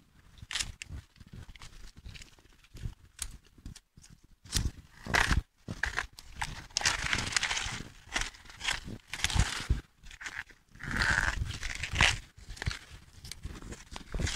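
Taro leaf stalks being cut through near the base with hand shears and pulled away: a string of irregular snips and crunches, with rustling of the big leaves and the dry straw mulch.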